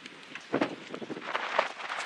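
Strong wind buffeting the camera microphone, a rough, gusting rush that starts about half a second in.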